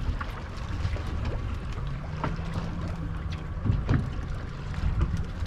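Wind and water noise on an offshore fishing boat: a steady low rumble, a faint hum partway through, and a few light knocks.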